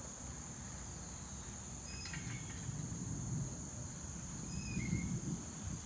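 Crickets' steady high-pitched chorus, with a few short chirps and a faint low rumble that swells twice.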